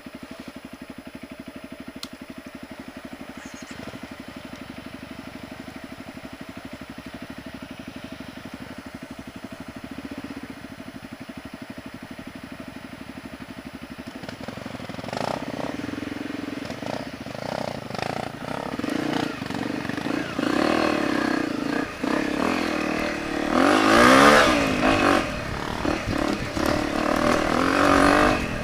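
Honda CRF250 single-cylinder trail bike engine idling steadily, then pulling away about halfway through, its revs rising and falling as it rides on.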